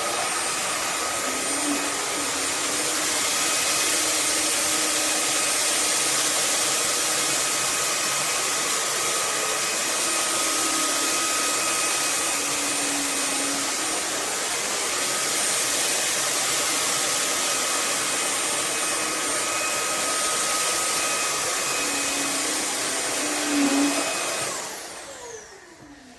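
SMOTURE cordless stick vacuum running on its maximum suction setting, a steady high whine and rush of air. Near the end it is switched off and the motor winds down, its whine falling away.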